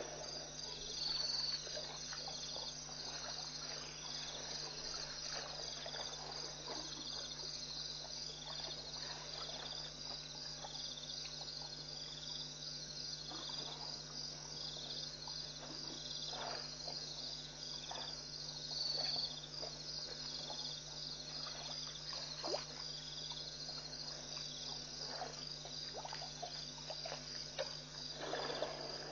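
A night chorus of crickets and other insects, a dense, rapidly pulsing trill that never stops, over a steady low hum. Faint scattered splashes and shuffles come from elephants drinking at the water's edge.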